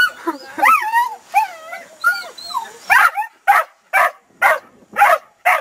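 A dog whining and yipping in wavering, rising and falling notes, then barking six times in a row, about two barks a second.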